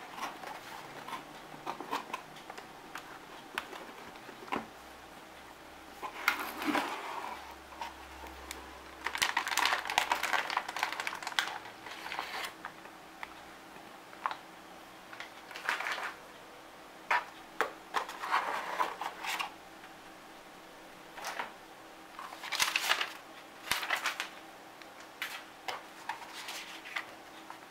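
A cardboard motherboard box and its packaging being handled: scattered clicks and knocks, with several bursts of rustling from the plastic bag and the paper inserts.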